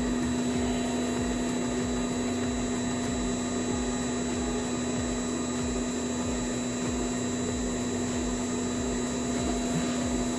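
The Z-axis stepper motor of a Phrozen Sonic Mini 4K resin printer driving the build platform along its lead screw: a steady, even motor hum with a strong low tone.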